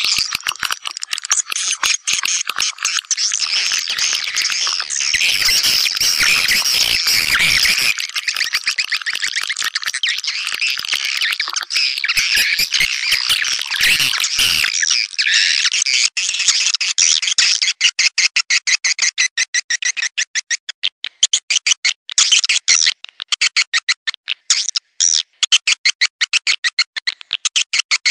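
Swiftlet calling recording: a dense, high twittering chatter of many swiftlets, thinning after about sixteen seconds into a rapid string of separate short chirps. This is the kind of call played to lure swiftlets into a nesting house.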